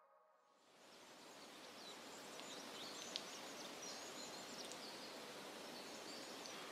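Quiet outdoor ambience fading in: a steady hiss of background noise scattered with faint, short, high chirps, and one brief click about three seconds in.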